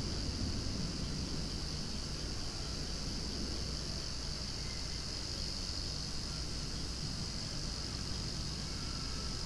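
Cicadas singing in a loud, continuous chorus: a steady high-pitched drone that holds unchanged throughout.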